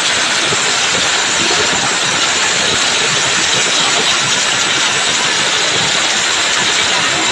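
Stripped-down underbone motorcycle engine revved hard and held at high revs, a loud, steady rasp with no let-up.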